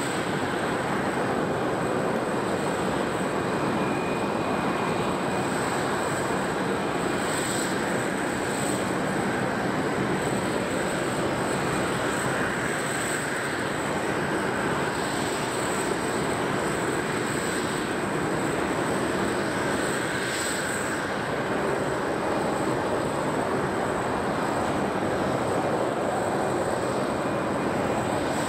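Steady airport apron noise: a constant rush of ground equipment and aircraft at a distance, with a thin, steady high whine over it and no single event standing out.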